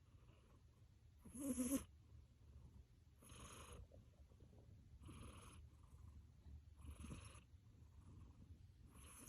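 Sleeping cat snoring: five snores about two seconds apart. The first, about a second and a half in, is much the loudest.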